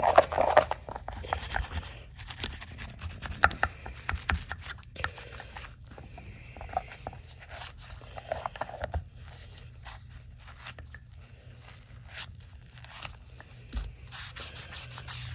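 Toothbrush scrubbing the foamed rim of a lawn mower wheel: a run of quick, irregular scraping strokes.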